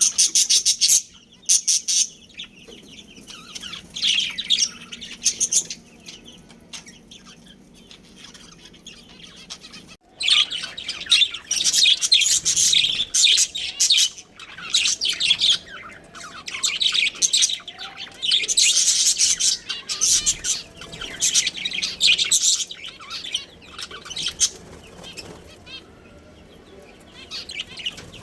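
Budgerigars chirping and chattering in quick, high-pitched bursts, sparser at first and busier from about ten seconds in.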